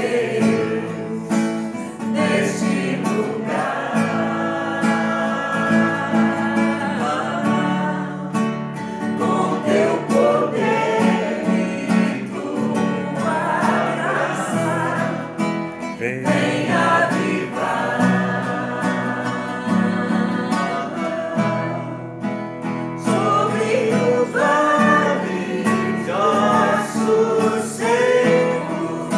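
Acoustic guitar accompanying a small group of voices singing a song together.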